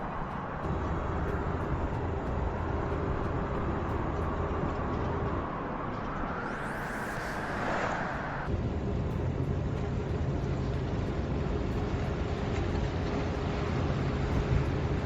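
Steady road and tyre noise of a Volkswagen ID. Buzz electric van driving, with something passing close by about seven to eight seconds in. The sound changes abruptly twice, about half a second in and about eight and a half seconds in.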